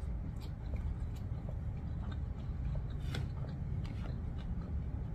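Close-miked chewing of a mouthful of noodles, with a few sharp clicks as a metal fork taps and scrapes in a plastic takeout bowl, the loudest about three seconds in.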